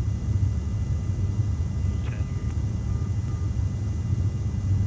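Steady low in-flight rumble heard inside an aerial-refuelling tanker's boom operator station during refuelling.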